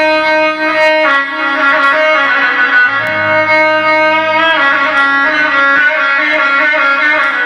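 Instrumental interlude of Iraqi party music with no singing: long held string-like melody notes over a low accompaniment, stepping to new pitches every second or two.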